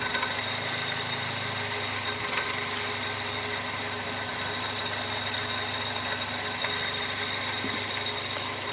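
Toyota 1.8L four-cylinder engine of a 2001 Chevy Prism idling steadily while running lean. The idle holds steady with water poured on the intake runners, so there is no sign of an intake gasket vacuum leak.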